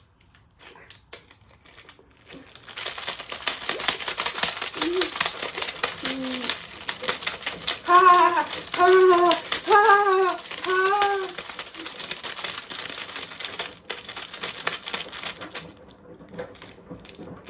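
A washing machine set running in a destruction test, clattering hard with a fast, dense rattle that starts about two and a half seconds in and stops near the end. Four short voice calls sound over it in the middle.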